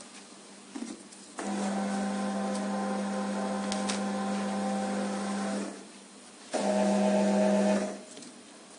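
Conveyor belt motor of a QMAX NF-1 needle detector running with a steady hum for about four seconds, stopping, then running again briefly.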